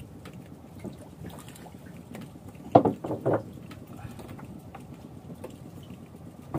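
Water lapping steadily at a small wooden boat, with two sharp knocks on the boat about three seconds in, half a second apart.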